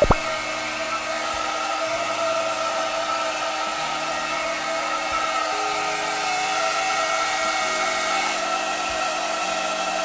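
Xiaomi Mijia 1600 W foldable hair dryer running, a steady rush of air with a motor whine of several tones; the airflow is very strong.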